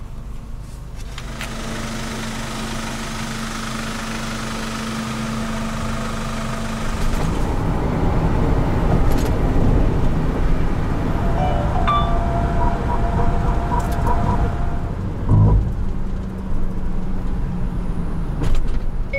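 Car driving on a road: steady engine and tyre noise that grows louder about a third of the way in, with a short low thump near the end.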